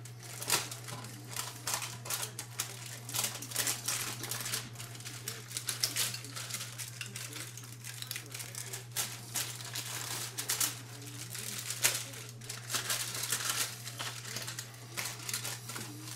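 Hands rubbing and patting dry rub into raw beef ribs in a foil-lined metal pan: irregular soft slaps and taps, with some crinkling of the aluminum foil. A steady low hum runs underneath.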